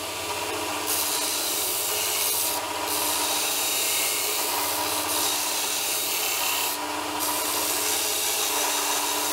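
Burr King 562 belt grinder running, its abrasive belt grinding a flat steel bar with a steady rasping hiss over the motor's hum. The hiss strengthens and eases a few times as the bar is pressed in and shifted.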